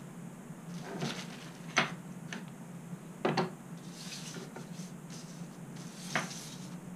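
Small plastic parts and a plastic parts bag handled on a countertop: a few light clicks and taps about a second apart, with rustling as a sheet is slid across the counter in the second half, over a low steady hum.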